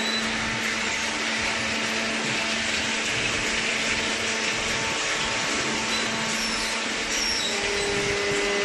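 Steady mechanical hum and hiss of a hydraulic cardboard baler running, its motor and pump holding one even tone, with a second faint tone joining near the end.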